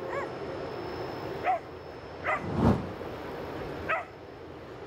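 Four short, yelping animal calls, each a quick arching cry, spaced irregularly over steady background noise. A single dull thump a little past halfway is the loudest sound.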